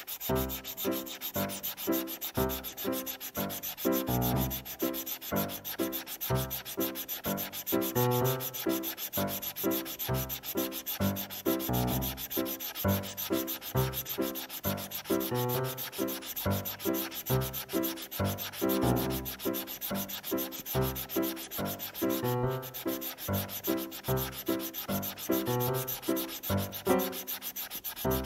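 Stylus tip rubbing on a tablet screen in rapid back-and-forth coloring strokes, a steady scratchy scrubbing of several strokes a second.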